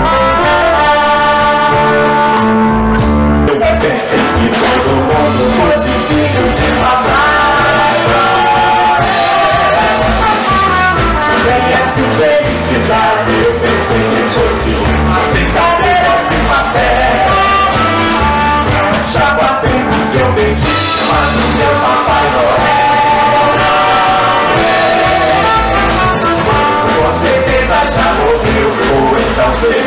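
Live jazz band playing, with saxophone, trumpet, upright bass and drums, and a woman and a man singing. The music changes abruptly about three seconds in, from held notes to a busier song.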